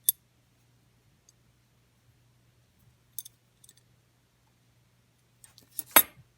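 Small hard parts clicking as they are handled: one sharp click at the start, a few faint clicks in the middle, and a short clatter with one louder knock near the end.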